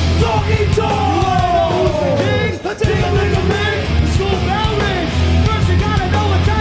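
Live rap-rock band performing, full band with yelled vocals. A long falling note leads into a brief break in the sound about two and a half seconds in, then the band carries on.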